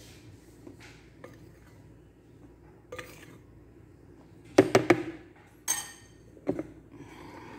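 Kitchenware knocking and clinking against a mixing bowl as flour is tipped into cake batter: a few faint taps, then a quick cluster of sharp knocks a little past halfway, followed by a ringing clink and one more knock.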